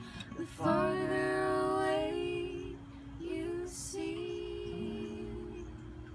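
Female singing with a strummed acoustic guitar, holding the closing notes of a slow folk-pop song; the guitar chord then rings and fades as the song ends.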